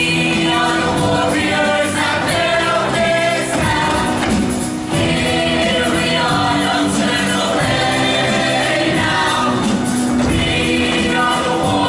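A mixed high-school show choir of male and female voices singing loudly and continuously in full chorus.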